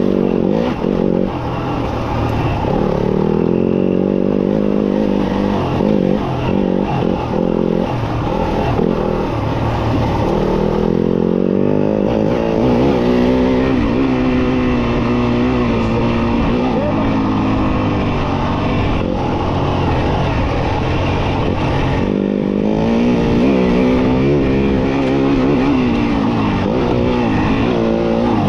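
Yamaha off-road motorcycle engine being ridden, the revs rising and falling again and again as the throttle opens and closes.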